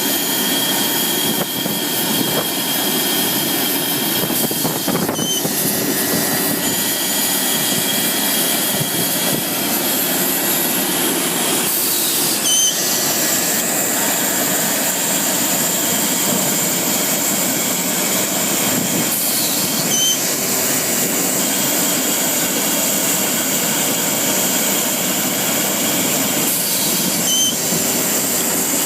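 LeRoi air compressor running steadily and loudly, with a short click or chirp about every seven to eight seconds.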